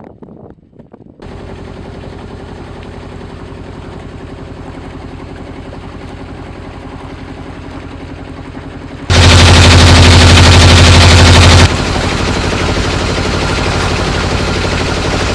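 Boat's inboard engine running with a rapid, steady putter, coming in about a second in. About nine seconds in it gets much louder for a couple of seconds, then eases back a little and stays loud.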